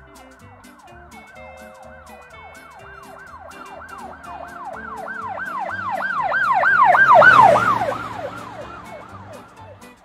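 Emergency-vehicle siren sound effect in a fast yelp, about three rising-and-falling wails a second. It grows steadily louder to a peak a little past the middle, with a rush of noise at the peak, then fades away. Light background music plays underneath.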